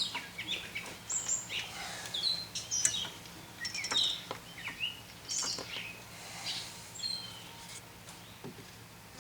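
Songbirds chirping and calling, many short rising and falling chirps, with a few sharp clicks mixed in near the start and around the middle.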